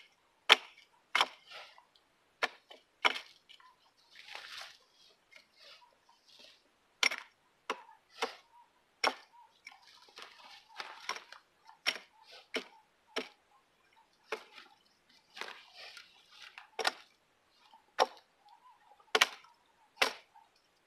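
Husqvarna 26-inch multi-purpose axe chopping limbs off a felled tree: sharp single knocks of the blade biting into wood, mostly about a second apart with some longer pauses. Softer rustling can be heard between some of the blows.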